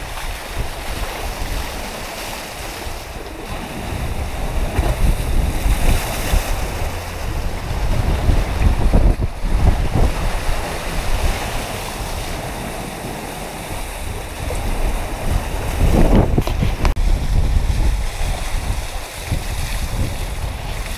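Wind buffeting the microphone over the rush of water and waves around a sailing catamaran under way. It rises and falls in gusts, with a louder surge about sixteen seconds in.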